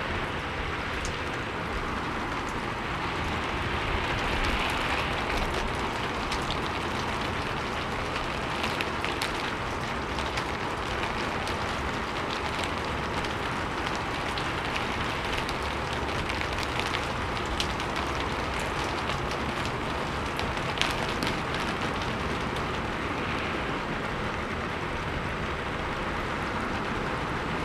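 Steady windblown rain beating on a roof and wooden surfaces, a dense hiss of drops with scattered sharper drip ticks, swelling gently now and then as gusts push it.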